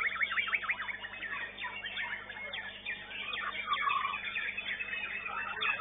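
Contest songbirds singing a rapid, varied song of quick whistled sweeps and chattering notes, opening with a fast run of closely spaced notes.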